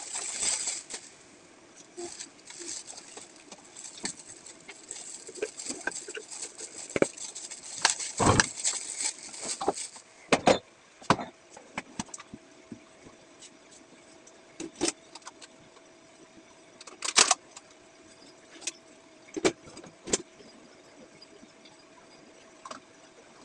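Scattered knocks and clicks as plastic squeeze bottles and cups are handled while sauce is drizzled onto drinks, with a hissing stretch through the first half.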